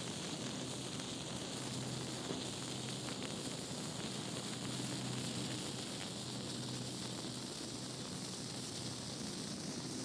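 Stormproof matches burning with a steady hissing sizzle and a few faint crackles.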